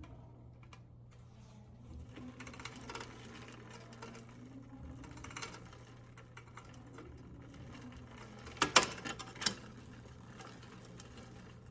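Trek Dual Sport 8.3's 3x8 chain drivetrain whirring as the pedals are cranked by hand, the chain running over the chainrings and rear cogs while it is checked for front derailleur rub after a barrel-adjuster tweak. About three-quarters of the way in comes a loud burst of clicks and clatter from a gear shift.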